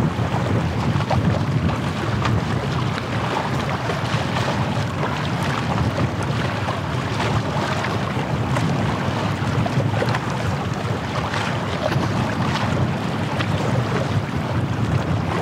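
Wind rumbling on the microphone over the wash of small waves on a bay shore, steady throughout with faint little splashes.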